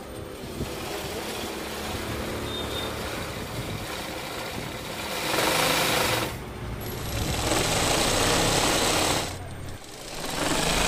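Sewing machine driven by a belt from a small electric motor, run from a foot pedal, stitching in three bursts of one to two seconds with short pauses between. The first burst starts about five seconds in; before that there is only a quieter, even background.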